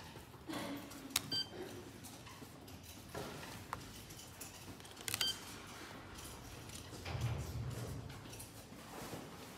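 Self-service library seat-reservation kiosk with an RFID card reader: two sharp clicks, each with a brief high beep, about four seconds apart, as a card is tapped on the reader. Light handling and tapping noise in between.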